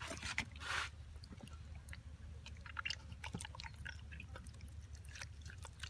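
Faint wet squelching and soft clicks of marinated chicken being handled and pushed onto a bamboo skewer in a stainless steel bowl of marinade.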